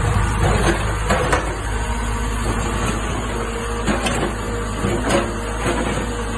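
Backhoe loader's diesel engine running steadily while its bucket digs and scrapes through broken asphalt and earth, with irregular sharp metallic clanks every second or so.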